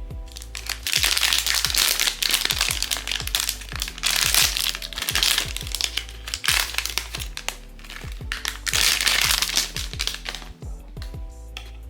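Plastic blind-box packaging crinkling loudly in three long stretches, over background music with a steady beat.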